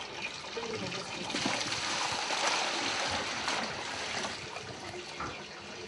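Liquid running and splashing from a tipped wooden butter churn into a plastic bucket as butter is pushed out with the wooden dasher. The splashing gets louder for a couple of seconds in the middle.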